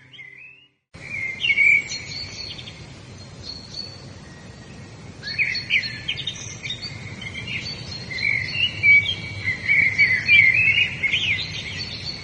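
Wild birds chirping and singing in quick, overlapping calls over a steady background hiss, starting about a second in after a brief silence.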